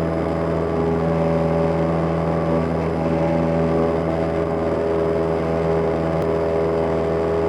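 Cessna 172M's four-cylinder Lycoming O-320 piston engine and propeller running steadily at high power during the takeoff climb, a constant drone.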